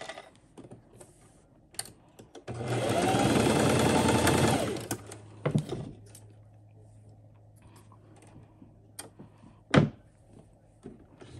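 Singer electric sewing machine stitching a short straight seam for about two seconds, starting a couple of seconds in. A low hum lingers for several seconds afterwards, with a few small handling clicks and one sharp click near the end.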